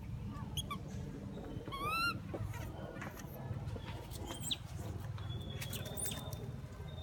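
Pigtail macaque giving a few short, high squeaks, with one louder rising squeal about two seconds in, over a steady low rumble.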